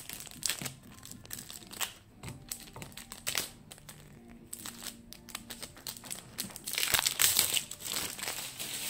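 Plastic protective packaging wrap being pulled off a new bicycle frame, crinkling and rustling irregularly, loudest about seven seconds in.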